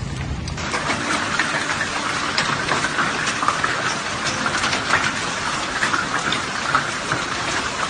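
A shower of volcanic lapilli from Etna pattering down on hard ground and cars, like heavy rain: a dense hiss full of small sharp ticks of stones striking. It starts abruptly about half a second in, after a low rumble.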